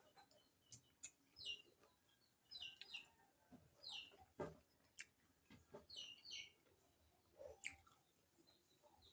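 Faint chirping of small birds: short high calls every second or so. A few soft clicks are scattered among them.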